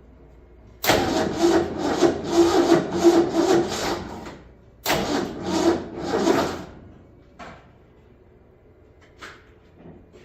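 Old Ford Bronco engine being cranked over on the starter in two tries, a pulsing churn of about two to three beats a second: about three seconds starting a second in, then a shorter try about five seconds in. These are first-start attempts after a rebuild.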